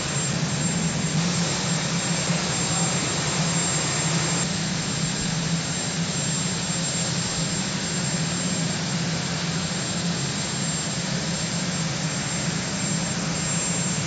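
Marine One, a Sikorsky VH-3D Sea King helicopter, with its turbine engines running. It makes a loud, steady rush of engine noise with a low hum beneath it.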